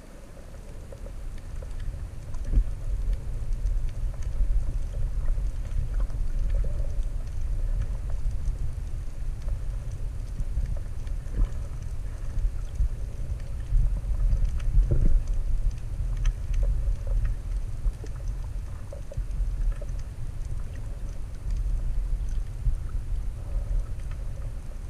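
Underwater rumble of water moving around a submerged camera, with scattered faint clicks.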